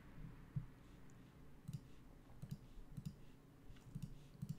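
Faint, irregular clicks of a computer mouse, several of them a second or so apart.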